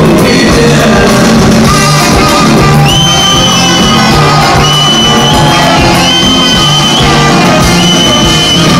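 Live band music played loud through a concert PA, with singing and shouts. A high, held note sounds in several long stretches from about three seconds in.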